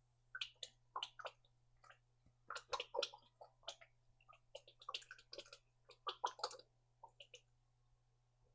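Faint, irregular clicks and soft taps from kitchen handling, bunched in a few short clusters, over a low steady hum.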